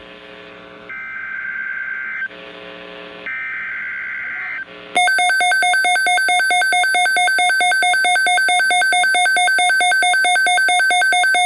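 Emergency Alert System alert opening: buzzing digital header data bursts, then about five seconds in a loud, steady attention tone that pulses rapidly.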